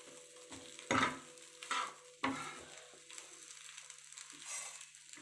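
A spatula scraping and knocking against a frying pan in three quick strokes in the first two and a half seconds, over faint sizzling of egg-coated bread frying.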